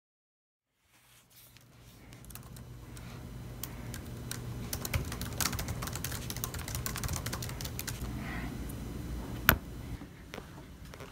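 Fingers typing quickly on a laptop keyboard, rapid irregular key clicks over a low steady hum, with one sharp louder click near the end.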